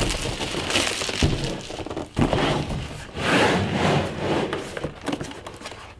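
Clear plastic shrink wrap crinkling and crackling in uneven bursts as it is stripped off a cardboard box, with a few sharp clicks.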